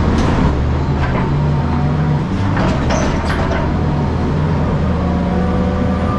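Heavy machine's engine running steadily with a deep hum, with a few short knocks in the first half.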